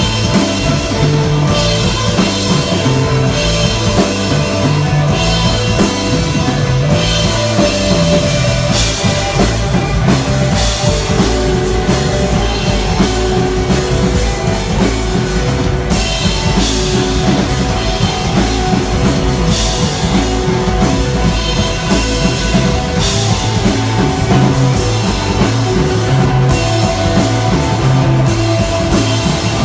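A desert rock band playing live, with drum kit and electric guitar. The music runs steadily, with cymbal crashes recurring every few seconds.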